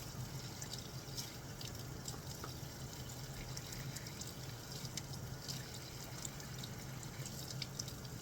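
Tap water running and splashing as flea shampoo is rinsed out of a cat's wet fur, with frequent small drips and splashes. A low steady hum sits underneath.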